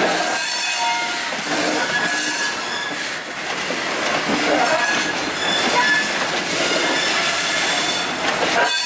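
Freight train of covered boxcars rolling past close by, with a steady rolling noise from the wheels on the rails. Short high-pitched squeals and screeches from the wheels come and go throughout.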